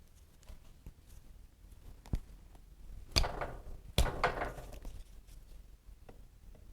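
Three sharp knocks of metal tools or engine parts striking, the second and third followed by a brief metallic ring, with a few faint clicks between.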